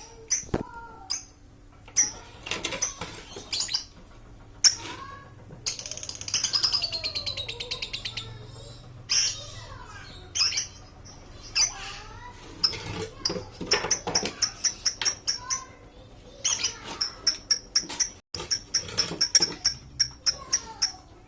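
Pet lovebirds chirping and chattering: many short, high chirps, with a fast buzzy trill about six seconds in and quick runs of repeated chirps later on.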